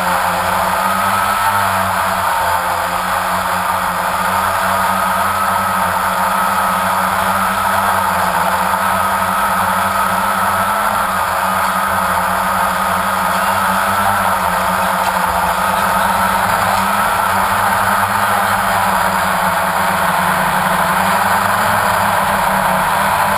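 Quadcopter drone's motors and propellers whining steadily, picked up by the camera on board, the pitch wavering slightly as the drone flies.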